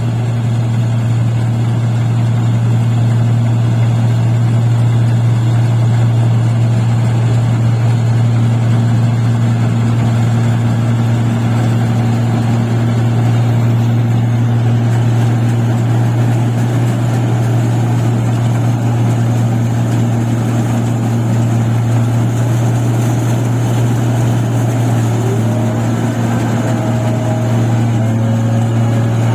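Paddy machine running steadily, its engine and mechanism giving a loud, constant low drone with no change in speed.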